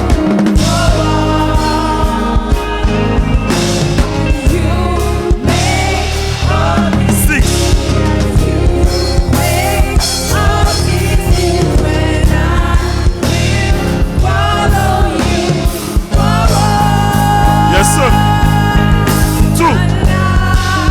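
A live gospel band and choir playing a song at full volume: a steady beat with bass and sustained chords under sung voices.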